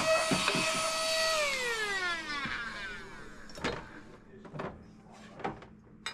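Small vacuum cleaner motor running with a steady high whine, then switched off about a second in, its pitch falling as it spins down. A few light knocks follow.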